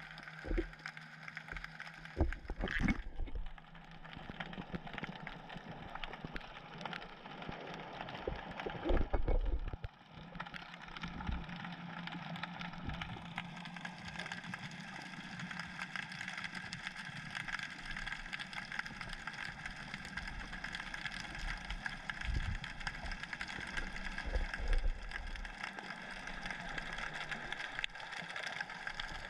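Underwater ambience picked up through a submerged camera: a steady low hum with a few fixed tones and faint crackle. Dull thumps come about 3 and 9 seconds in, and again near 22 and 25 seconds, as the camera drifts and bumps in the current.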